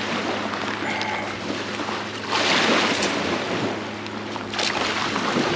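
Water and wind noise on a small fishing boat over a steady low hum, with a louder swell of rushing noise about two seconds in.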